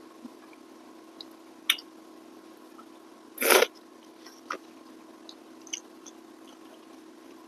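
Close-up mouth sounds of a person eating rice and fish by hand: scattered soft smacks and clicks of chewing, and one loud, short burst of breath noise about three and a half seconds in. A faint steady hum sits underneath.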